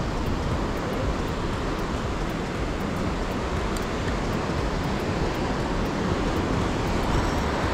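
Steady rush of rough sea surf breaking on rocks, mixed with wind on the microphone.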